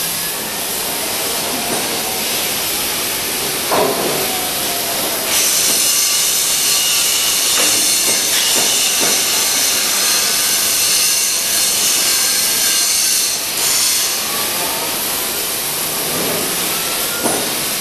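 EPS foam CNC shape-cutting machine running as its wire cuts a block: a steady hiss that grows louder and brighter about five seconds in and eases off around thirteen seconds. There are a few faint rising whines near the start and end, and scattered clicks.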